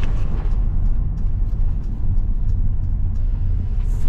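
Van driving, heard from inside the cab: a steady low rumble of engine and road noise.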